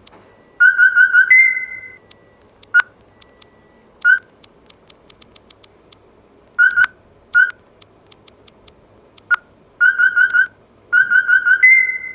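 Asus ZenFone 2 Laser notification tones playing: short electronic chirps, some in quick runs of four or five pips and some single, with scattered sharp high ticks between them. A held higher tone closes the last run near the end.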